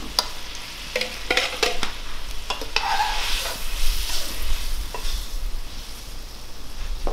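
A metal ladle clinking and scraping in a wide metal pot as fried stuffed bitter melons are spooned into simmering curry gravy, with several sharp knocks in the first couple of seconds and one more about five seconds in. A sizzling hiss swells in the middle.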